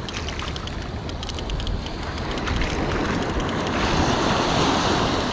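Small surf waves washing up a sandy beach, with wind buffeting the microphone. A wave breaks and rushes in louder from a little past halfway.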